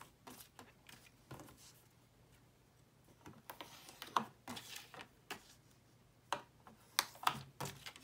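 Paper being creased with a bone folder on a plastic scoring board: light irregular clicks and taps of the tool and paper against the board, with short scrapes and paper rustling, and a longer scraping stretch a little before halfway.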